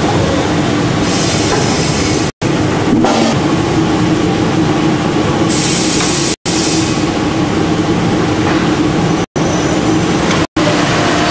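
Intorex CNC wood turning and shaping machine running, its cutter heads machining wooden furniture legs: a steady loud machine noise with a low hum, with added hissing cutting noise about a second in and again around the six-second mark. The sound is broken by several momentary gaps of silence.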